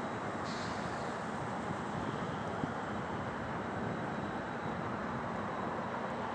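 Steady low rumble of an EMD F59PH diesel locomotive running, with a brief hiss about half a second in.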